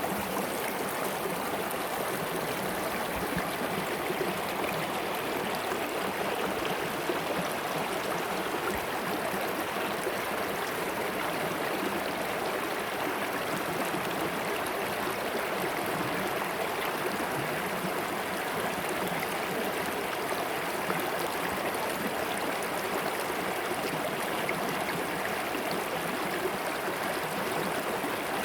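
Mountain stream of glacier meltwater rushing over stones: a steady, even splashing and gurgling that does not let up.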